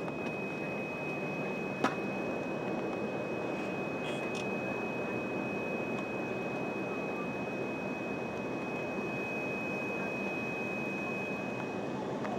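Cabin noise inside an Embraer ERJ-145 climbing out after take-off: the steady rush of its rear-mounted Rolls-Royce AE 3007 turbofans and the airflow, with a thin steady high whine over it. A single sharp click about two seconds in.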